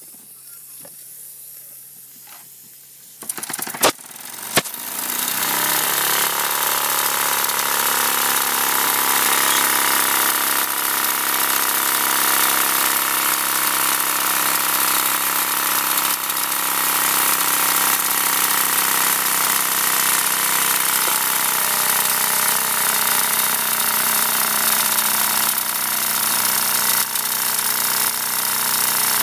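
Wilesco toy steam engine and its shears grinder: a faint hiss, a few sharp clicks about four seconds in, then a loud steady whir with hiss that climbs quickly as the engine comes up to high speed and keeps running.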